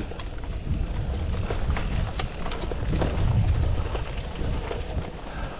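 Mountain bike riding down a wet dirt trail: a continuous low rumble from the tyres and air rushing past, with many sharp clicks and knocks as the chain and frame clatter over bumps.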